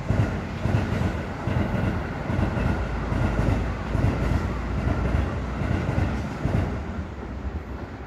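Electric train passing close by. Its wheels clack over the rail joints about twice a second over a steady rumble, and the sound eases off near the end as the last cars go by.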